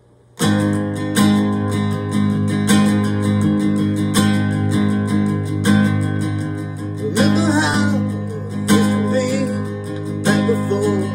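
Recorded song intro starting abruptly about half a second in: acoustic guitar strummed in a steady rhythm, with a strong accent about every second and a half.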